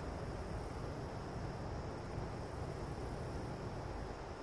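Steady outdoor background noise: a low rumble with a faint high, even hiss above it.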